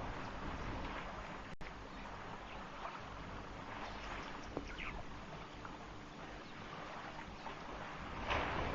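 Steady wind noise on an outdoor webcam microphone, with a few faint bird chirps near the middle and a very brief audio dropout about one and a half seconds in.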